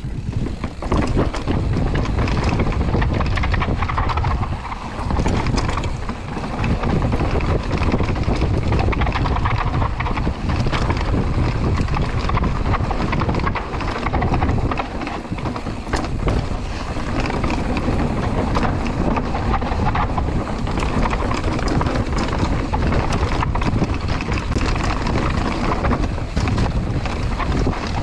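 Mountain bike rolling fast over stone flags and rocky trail: tyres rumbling and chattering over the stones and the bike rattling with many small knocks, under heavy wind buffeting on the action camera's microphone.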